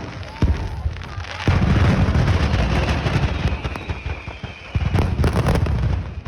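A large stock of fireworks going off uncontrolled: a dense, continuous barrage of bangs and crackling with many explosions at once. It is heaviest from about a second and a half in, with a fresh cluster of sharp bangs near the end. The explosions are around what looks like the truck delivering the fireworks for later displays, igniting unintentionally.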